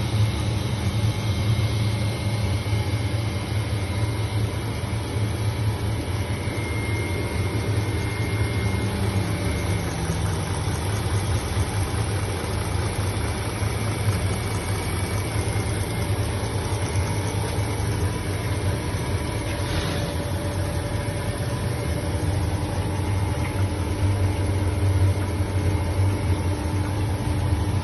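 Ice cream plant machinery running: the electric drives of the mix-tank agitators and the milk homogenizer give a steady low hum.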